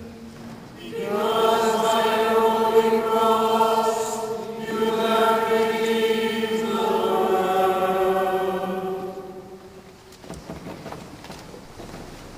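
Voices singing a slow hymn in long held notes: one phrase of about three seconds, a short breath, then a second phrase of about four seconds that fades out near the end.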